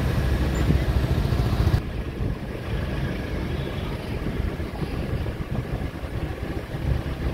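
Street noise dominated by a low, uneven engine rumble typical of passing motorbikes, with faint voices. About two seconds in the sound changes abruptly and the higher hiss drops away.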